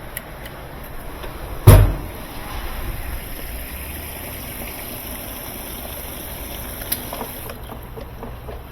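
Whirlpool direct-drive washing machine running on test with a new motor coupling, a steady mechanical noise with a loud single thump about two seconds in. A sharp click comes near the end.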